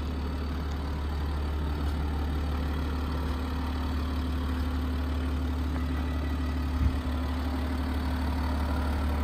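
Genesis GV80's 3.0-litre inline-six diesel engine idling steadily, a low even hum, with a brief thump about seven seconds in.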